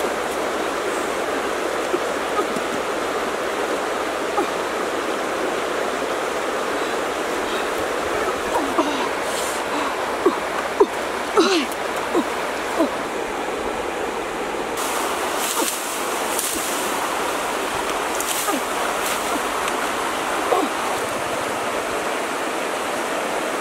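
Steady rushing of a shallow river flowing over stones. Around the middle come a few short faint chirps and brief rustles.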